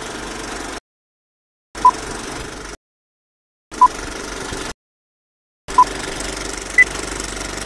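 Film-leader countdown sound effect: a film projector's rattle in one-second bursts separated by silences, with a short beep at the start of each burst about every two seconds. A single higher-pitched beep comes near the end.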